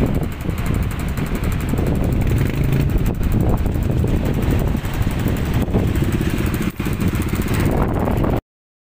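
Several motorcycle engines idling and revving in a queue, with a few knocks of handling noise on the phone's microphone. The sound cuts off suddenly near the end.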